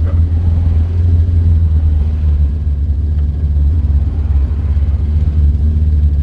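Car driving with a loud, steady low rumble of engine and running gear.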